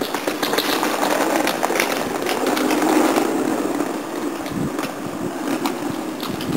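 A motor vehicle passing close by on the street: a steady engine drone with road noise swells to a peak about three seconds in, then fades.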